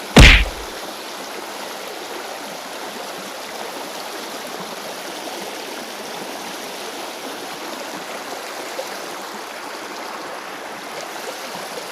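Shallow stream water flowing steadily over a rocky bed. A single loud, brief thump comes a fraction of a second in.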